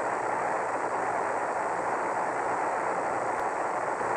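Steady hiss of an Apollo air-to-ground radio recording between transmissions, with a faint steady hum underneath.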